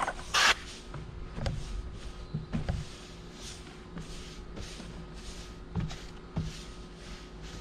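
Stain brush on a long pole being pushed back and forth across stair treads: a soft swish of bristles about twice a second, with a few dull knocks.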